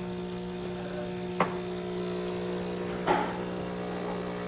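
Miele CM5310 Silence automatic coffee machine humming steadily as it runs its milk-line rinse cycle. There is a sharp click about a second and a half in and a louder knock about three seconds in.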